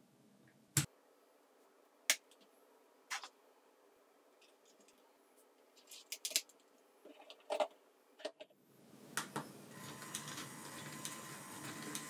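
Lego plastic pieces clicking and snapping together as Technic parts are fitted by hand: a string of sharp separate clicks, several close together near the middle. About two-thirds of the way through, a steady whirring noise with a faint high tone sets in.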